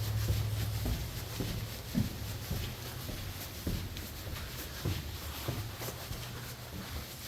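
Scattered light knocks and clicks of handling and shuffling about, over a low hum that fades out about a second in.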